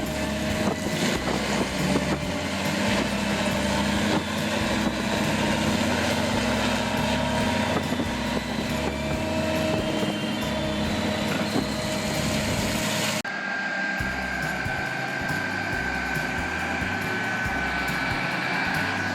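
Heavy machinery engine running steadily. About thirteen seconds in the sound changes abruptly to a different steady engine hum.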